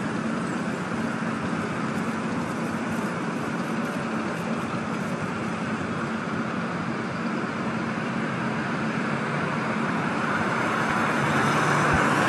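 Road traffic: car and motorcycle engines running and tyres on the road as vehicles move through an intersection, a steady low hum under the road noise, growing louder near the end as traffic comes close.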